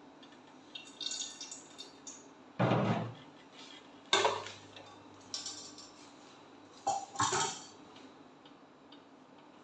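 Metal kitchenware clinking and knocking as used frying oil is poured from a frying pan through a small wire-mesh strainer into a non-stick pot: a handful of separate knocks and clinks, the sharpest about four seconds in with a short ring.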